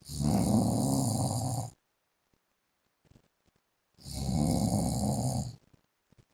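A man snoring in his sleep: two long snores, each lasting under two seconds, about four seconds apart.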